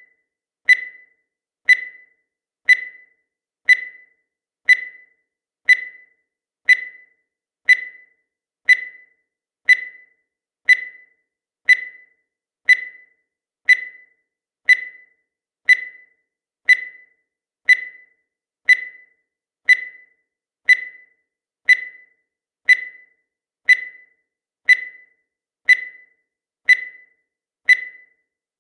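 Countdown timer sound effect: a short, high electronic beep once every second, each one starting sharply and fading quickly, marking off the seconds.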